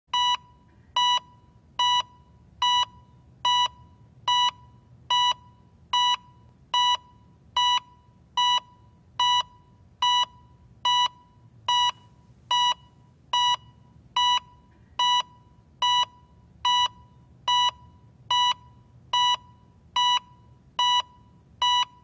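Heart monitor beeping steadily: short single-pitch beeps at an even pace of a little over one a second, about 73 a minute, the signal of a steady, regular heartbeat.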